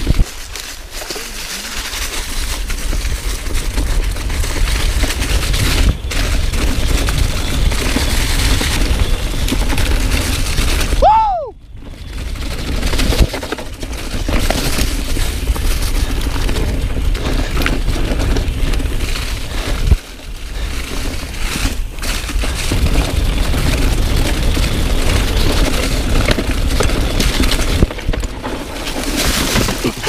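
Knolly Delirium mountain bike descending fast over rocky, leaf-covered singletrack. Wind buffets the camera's microphone over the rattle of the bike and the clatter of the tyres over rocks and roots, with frequent sharp knocks. A short squeal rises and falls in pitch about eleven seconds in.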